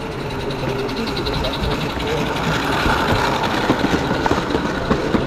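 Live steam model locomotive running on the layout, its exhaust and wheels giving a fast, even ticking beat, with voices alongside.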